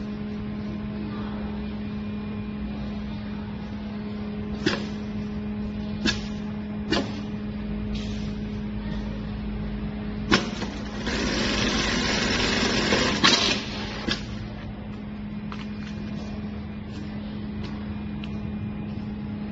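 Xingchi XC-3020R computer-controlled pattern sewing machine working through a zipper-sewing cycle. A steady hum runs throughout, with a handful of sharp clicks. About eleven seconds in comes a louder stretch of rapid, noisy running for about two and a half seconds as it stitches, ending in a few more clicks.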